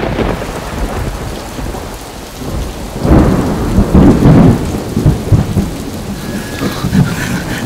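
Heavy rain falling steadily, with a roll of thunder about three seconds in that rumbles for a couple of seconds.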